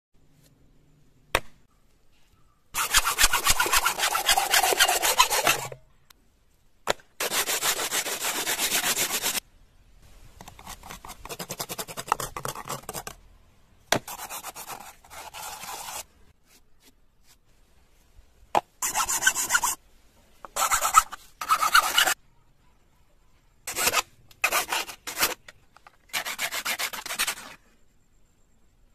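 Coconut shell being scraped and rasped by hand: several spells of rapid scraping strokes, each one to three seconds long, with short pauses between, and a single sharp click just over a second in.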